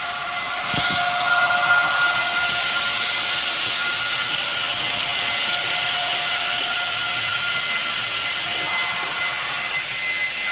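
Model trains running on a layout: the steady whine of small electric locomotive motors with the rumble of wheels on track as a freight train passes close by, loudest about a second or two in.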